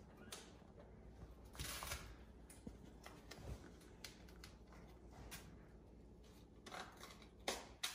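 Faint rustling and light handling noises as an office chair's padded parts and their plastic wrapping are moved about, with a louder rustle about two seconds in and a few more near the end.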